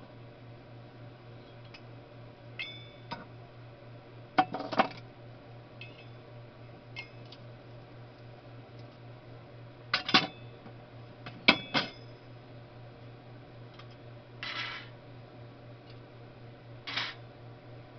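Scattered metallic clinks and taps from small metal parts being handled and set down on a workbench, a few ringing briefly, with short scraping rustles around the middle and near the end. A steady low hum runs underneath.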